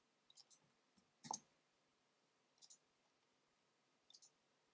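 Computer mouse clicking a few times, most clicks a quick double tick of button press and release, with one louder click about a second in.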